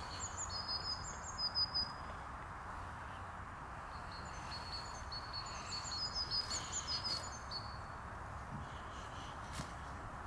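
A small bird chirping in two bouts of quick high notes, a short one at the start and a longer one about four seconds in, over steady outdoor background noise.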